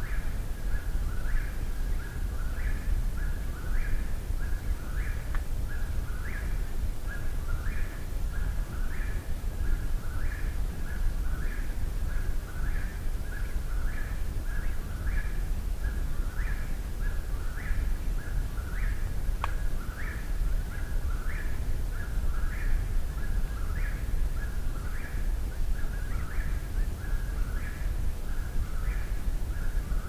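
Eastern whip-poor-will singing close by, repeating its short rising phrase about once a second without a break, over a low steady rumble.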